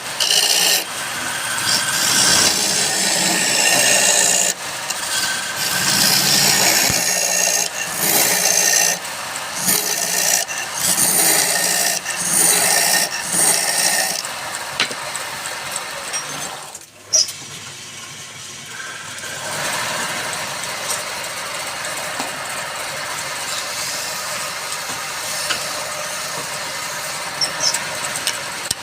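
A woodworking machine running while it cuts wood: an uneven, scraping cutting noise for the first half. About halfway through it drops out briefly and becomes a steadier, quieter running sound.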